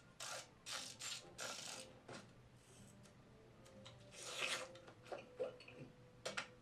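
Cartoon film sound effects played back through a center-channel speaker. There are quick scratchy rasps, about six in the first two seconds, then a longer swell of rustling noise a little past the middle.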